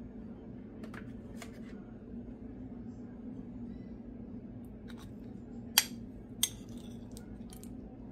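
A few scattered sharp clicks of a utensil against a dish, as peach cobbler is scooped and tasted; the two loudest come about two-thirds of the way through. A steady low hum lies underneath.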